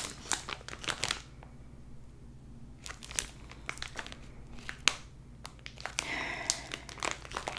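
A clear plastic bag handled close by and rustling, densest in the first second, then scattered single crackles. About six seconds in comes a short breathy sniff at the bag mixed with more rustling.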